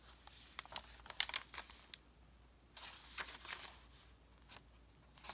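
Faint rustling and crinkling of paper and card as the pages of a handmade junk journal are handled and turned, with light taps and flicks coming in two short spells.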